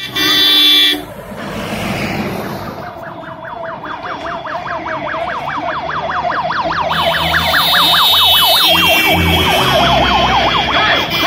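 Vehicle horn blast lasting about a second, then an electronic siren on an approaching vehicle yelping fast, about six warbles a second, growing louder as it comes closer. A second horn sounds over it partway through, with engine rumble underneath.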